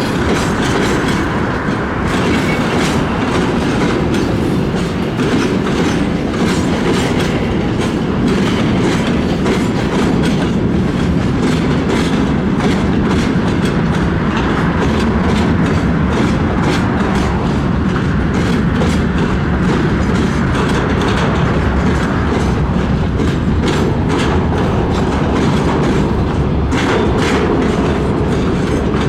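Train cars rolling past at close range, with a steady rumble and many rapid clacks of wheels crossing rail joints.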